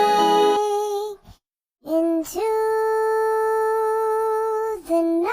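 Music: a chord thins to a single held melodic note, hummed or sung, that breaks off briefly about a second in. A new note then slides up and holds steady for about three seconds, and slides up again near the end.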